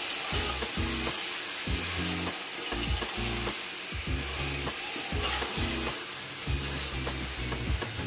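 Marinated chicken sizzling in hot oil and fried onions in an aluminium pot while a metal slotted spoon stirs it through.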